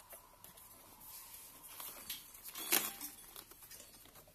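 Hands handling wires and corrugated plastic wire loom, with faint rustling and small clicks and one louder rustle a little past halfway.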